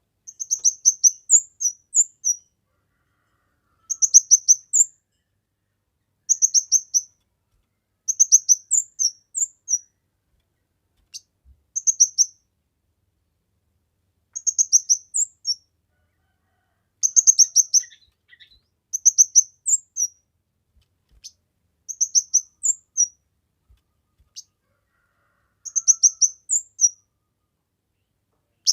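Kemade songbird singing steadily in full voice: a dozen or so short, high-pitched phrases of quick repeated notes, each under a second, with brief pauses between them.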